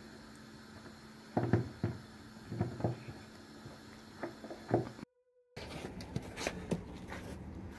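A cat licking and gnawing a catnip ball in its holder on a cabinet door, knocking it against the door in soft, irregular taps and clicks, a few in quick clusters. About five seconds in the sound cuts out briefly, then gives way to faint background noise with scattered small clicks.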